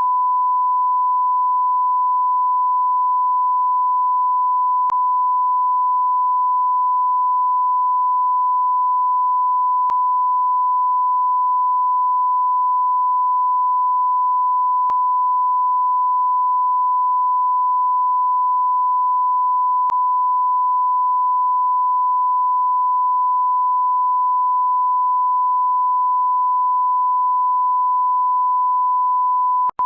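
Censor bleep: a single steady high-pitched pure tone held unbroken at one even level, dropping out for an instant near the end.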